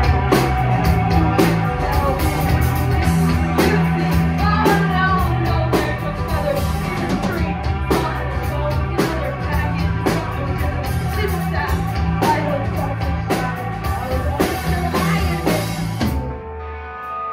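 Live rock band playing: electric guitars, bass guitar and drum kit with regular drum hits. The full band stops about 16 seconds in, leaving guitar notes ringing.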